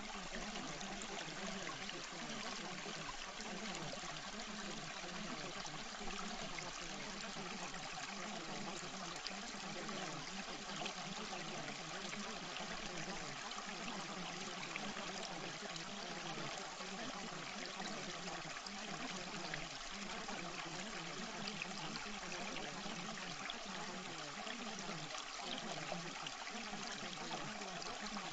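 Steady sound of running water, like a trickling stream, even throughout.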